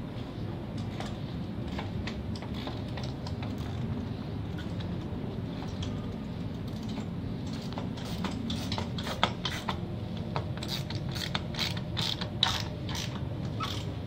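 Irregular sharp mechanical clicking and ticking over a steady low rumble, the clicks coming thick and fast in the second half.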